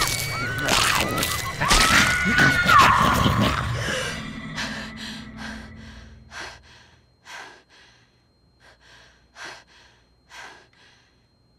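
A loud burst of screaming and noise fades out over about the first four seconds. Then a young woman gasps and pants in short, sharp breaths, coming further apart as she catches her breath after waking with a start.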